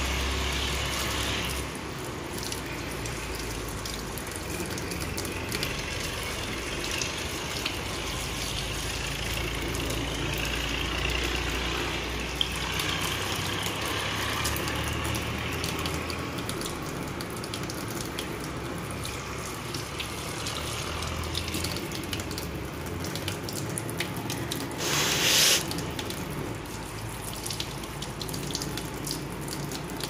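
Kitchen tap running steadily into a stainless steel sink, the stream splashing over a small plastic dishwasher inlet filter held under it to rinse out dirt. One brief louder burst of noise comes about five seconds before the end.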